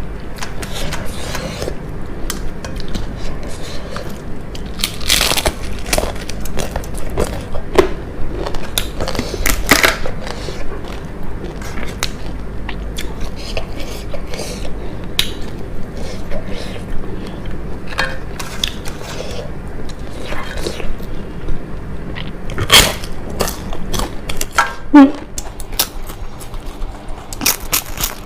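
Close-miked eating: irregular crunching and chewing of crisp fried food, with sharp crunches spread throughout.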